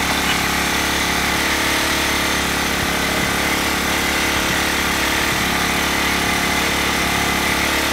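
Ryobi RYi1000 inverter generator's engine running steadily with no load on it.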